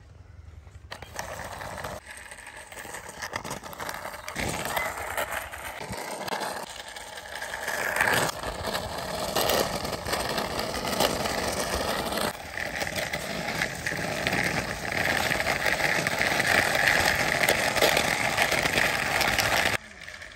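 Plastic wheels of a toy Thomas train engine, pushed by hand, rolling over a rough concrete wall top: a continuous grinding rattle. It starts about a second in, grows louder, and stops suddenly near the end.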